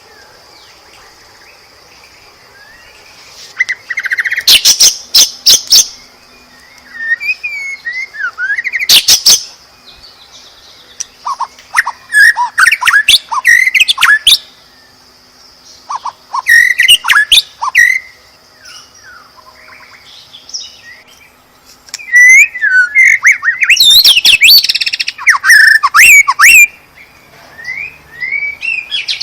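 White-rumped shama (murai batu) singing at full voice. It sings in bursts of rapid, sliding whistles and chattering phrases, with pauses of a few seconds between them. A faint, steady high-pitched hiss runs underneath.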